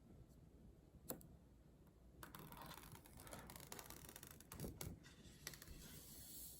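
Faint handling sounds: a single click about a second in, then soft scratchy rustling with a few light taps and clicks.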